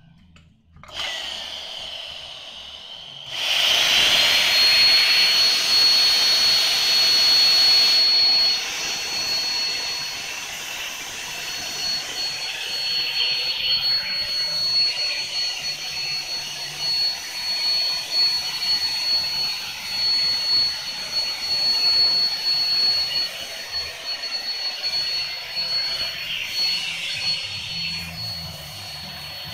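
Canister vacuum cleaner motor switched on about three seconds in, spinning up with a high whine that climbs and then holds one pitch, running steadily as it blows air through its hose into a large plastic inflatable whale.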